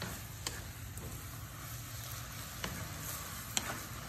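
Shredded young papaya stir-frying in a non-stick pan: a steady sizzle, with a wooden spatula scraping through it and a few sharp taps against the pan.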